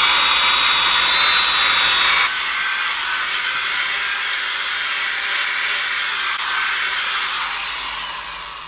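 Handheld power grinder with a polycarbide sanding disc running at speed against a VW flywheel, scuffing up the clutch face so the new clutch can bed in. The sound eases about two seconds in, and near the end the motor spins down with a falling whine.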